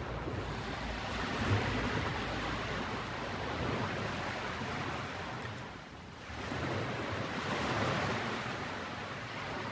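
Ocean waves washing onto a beach, a steady surf noise that swells and ebbs. It eases off a little past halfway, then a fresh wave builds and breaks near the end.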